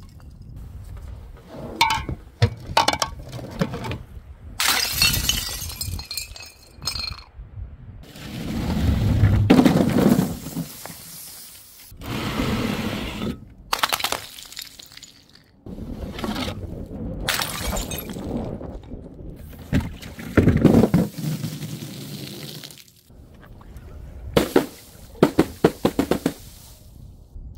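Glass bottles being smashed, a series of separate crashes and shatters with clinking shards. Some heavier, duller thuds come in between, and there is a quick run of clinks near the end.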